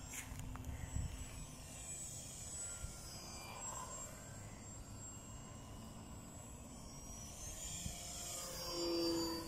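Radio-controlled high-wing model airplane's motor and propeller buzzing as it flies circuits, growing louder near the end as it passes close.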